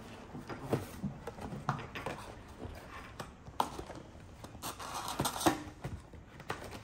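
Cardboard trading-card boxes being torn and pulled open by hand: rustling and ripping of cardboard with scattered taps and clicks, loudest about five seconds in.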